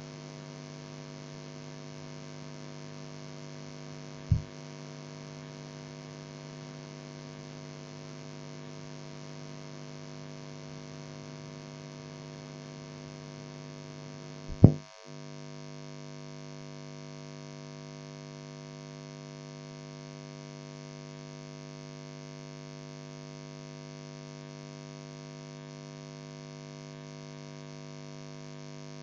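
Steady mains hum with many overtones on a blank stretch of an old cassette tape transfer. Two sharp clicks come about four and fifteen seconds in, the second louder.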